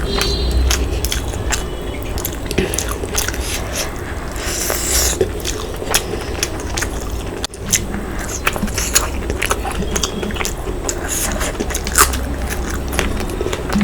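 Close-up eating sounds: a person biting and chewing a meal of mutton curry and rice, with many short, sharp mouth clicks scattered throughout.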